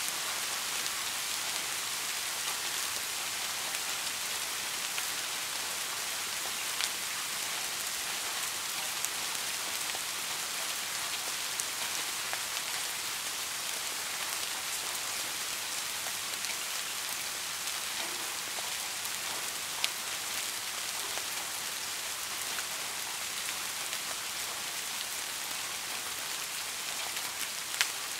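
Steady rain, an even hiss with scattered faint drop ticks and a few sharper ones.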